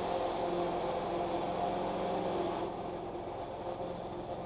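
Petrol walk-behind lawn mower engine running steadily under mowing, turning a little quieter and duller about three seconds in.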